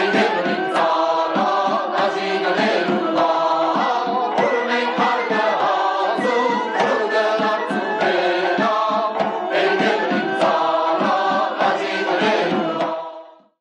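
Armenian folk music: a choir singing over a steady held drone. The music fades out near the end.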